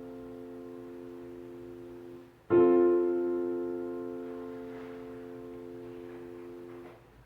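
Keyboard with a piano sound playing sustained chords. A held chord fades, a new chord is struck about two and a half seconds in and rings while it decays, and it is released shortly before the end.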